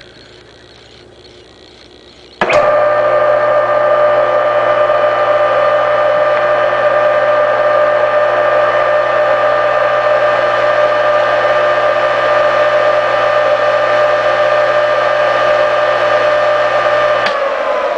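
Craftsman 113.1247 1 HP capacitor-start AC motor switched on with a click about two and a half seconds in, then running with a steady electric hum and whine at full speed. Near the end it is switched off and its whine falls in pitch as it spins down.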